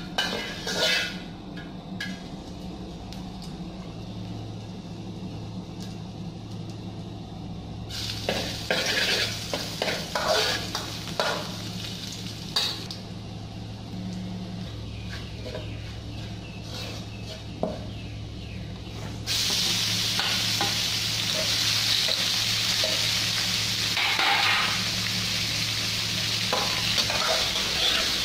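A metal spatula scraping and tapping around a wok as chopped ginger fries in a little oil. About two-thirds of the way in, a loud, steady sizzle starts as raw pork goes into the hot wok, with stirring scrapes over it.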